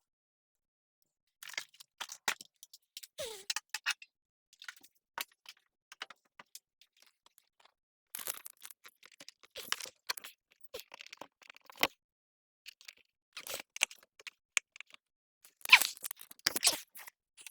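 Irregular clicks, scrapes and rustling of objects being handled, in short clusters, the loudest about sixteen seconds in.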